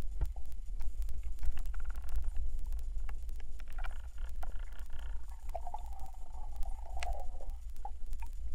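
Underwater sound picked up by a camera mounted on a speargun: a steady low rumble of water moving against the housing, with scattered clicks and ticks. A brief wavering tone sounds about a second and a half long near the middle.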